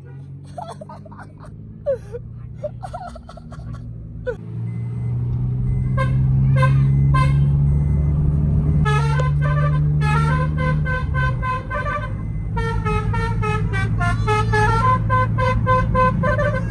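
Basuri telolet horn, a multi-tone musical vehicle horn, playing quick melodic runs of short notes, sparse at first and denser and louder through the second half. A vehicle engine drones underneath, swelling for a few seconds in the middle.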